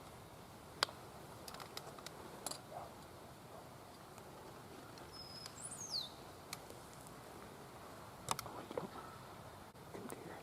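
Quiet outdoor ambience with a single high bird chirp sliding down in pitch about six seconds in, and a few faint clicks and rustles scattered through.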